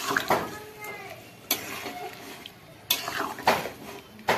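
Chicken and potatoes being stirred in a hot kadai: the stirring utensil scrapes through the meat and knocks against the pan about every second and a half.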